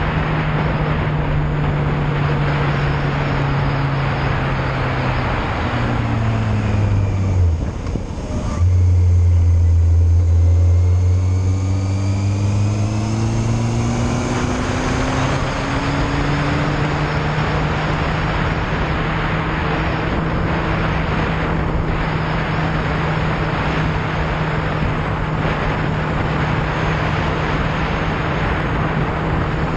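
Yamaha Fazer motorcycle engine under way, with wind rushing over the camera. The engine note drops as the bike slows about six to eight seconds in and breaks off briefly. It comes back loudest and low, rising in pitch as the bike accelerates, then settles into a steady cruising note.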